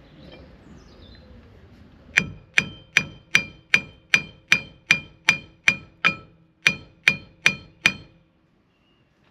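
A hammer striking steel in a steady run of about fifteen ringing blows, roughly two and a half a second, with a short pause near the middle, hitting a seized part to knock it free.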